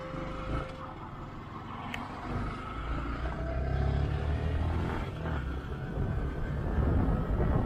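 Motorcycle ride: engine running under heavy wind and road noise, growing louder over the first few seconds.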